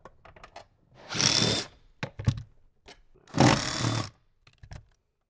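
Cordless power driver with a 10 mm socket spinning a seat-rail bolt in two short bursts about two seconds apart, with light clicks of the tool and socket between them.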